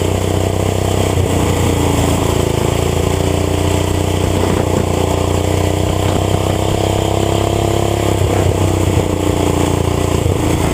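Racing lawn tractor's small gas engine running hard and steadily. Its pitch sags slowly for several seconds, then shifts about eight seconds in.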